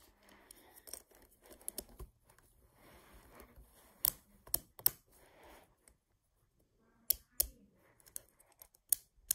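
Beyblade Burst top (World Spriggan) handled and twisted together by hand: soft plastic rustling, then a handful of sharp clicks as the layer snaps over the driver's burst teeth.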